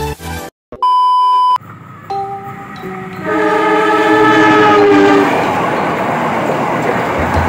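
A short electronic beep about a second in. Then a KAI CC 203 diesel-electric locomotive's horn gives two short toots and a longer blast of several tones, its pitch sagging slightly as it goes by. Over the horn comes the rising rumble of the locomotive and passenger coaches passing close.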